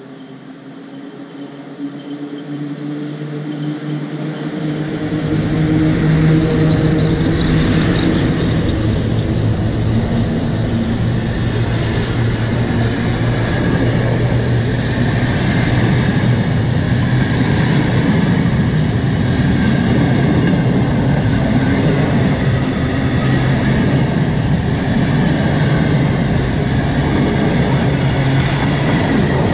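Freight train approaching and running past on the near track, getting louder over the first five or six seconds as the locomotive closes in. Then the steady noise of its flat and container wagons rolling by.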